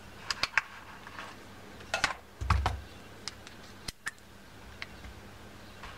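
Scattered light clicks and taps of small hard objects being handled on a tabletop, with one duller thump about two and a half seconds in.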